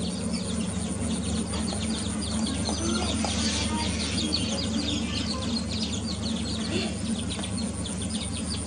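A brood of young chicks peeping in quick, short high calls, several a second, over a steady low hum.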